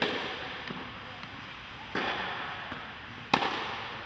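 Three tennis ball impacts, racket on ball and ball on court, each echoing in an indoor tennis hall. They fall about two seconds and then about one and a half seconds apart, and the third is the sharpest and loudest.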